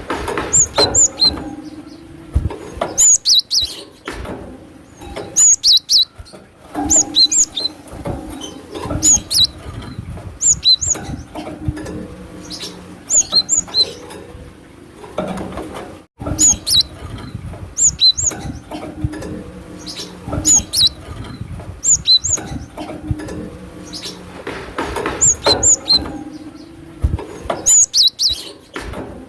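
Cinereous tit (glatik batu) calling: quick groups of short, high chirps repeated every second or two over a faint steady low hum, with a brief break about halfway through.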